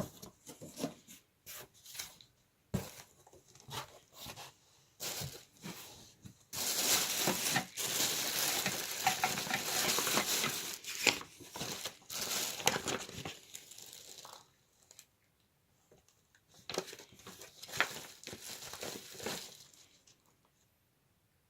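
Packaging rustling and crinkling as a vacuum cleaner is unboxed. Scattered short handling noises come first, then several seconds of continuous rustling, then a quiet spell and a few more rustles near the end.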